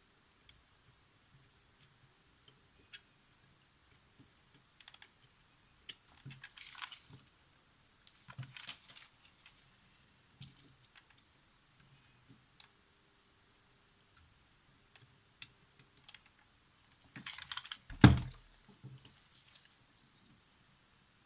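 Scattered light clicks and short scrapes of small tools working on the inside of a Polaroid SX-70 camera, with one sharp knock near the end.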